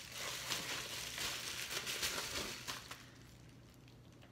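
Plastic bubble-wrap packaging crinkling and rustling as it is pulled off a baitcasting reel, dying away about three seconds in.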